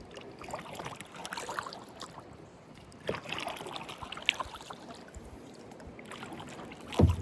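Kayak paddle working the water, with small splashes and drips, as the kayak is turned around. A louder thump comes near the end.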